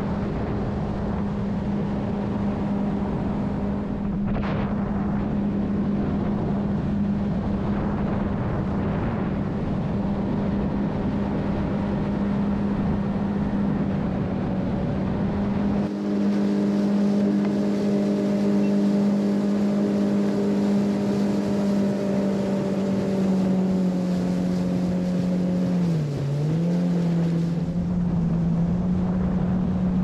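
Jet-drive outboard on an aluminum jon boat running underway at a steady speed. Its engine note holds one pitch over a rush of water and wind. About three-quarters of the way through, the engine note briefly drops and comes back up.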